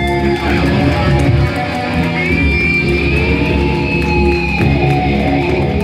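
Live rock band playing an instrumental passage: electric guitars, bass guitar and drums, with a high held guitar note that slides in pitch from about two seconds in.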